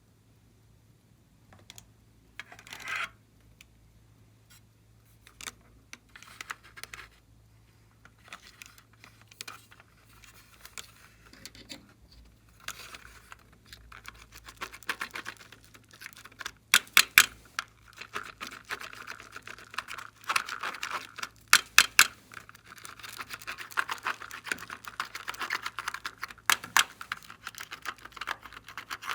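Glossy slime being squished and stretched by hand: sticky crackling that grows denser about halfway through, with sharp clicking pops in small clusters near the middle and toward the end.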